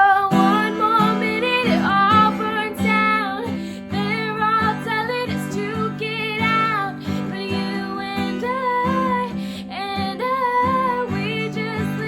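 Female voice singing a melodic line that bends and holds notes, over a strummed acoustic guitar.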